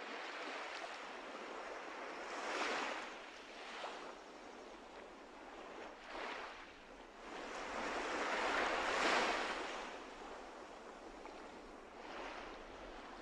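Ocean waves washing in: a rushing noise that swells and ebbs several times, the longest and loudest swell about nine seconds in.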